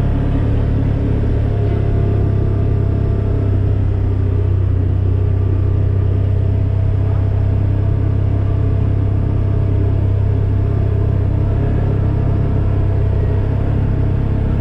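A vehicle engine running at a steady speed over a low rumble as it drives along a dirt road, with no change in pitch.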